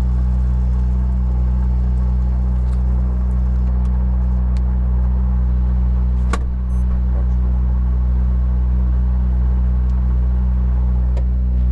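Ford Fiesta R5 rally car's 1.6-litre turbocharged four-cylinder engine idling steadily with the car standing still, heard inside the cabin. A single sharp click sounds about six seconds in.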